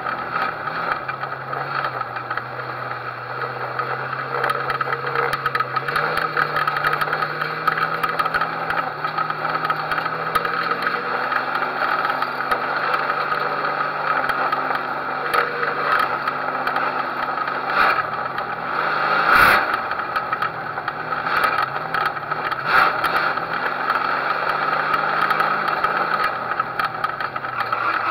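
Figure-8 race car engine heard from inside the car, running at low, steady revs, its pitch stepping up and down a few times, with constant rattling from the car body. One sharp knock about two-thirds of the way through.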